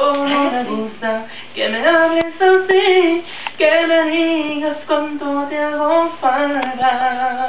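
A solo voice singing a slow Spanish-language ballad a cappella, holding long notes and sliding between them.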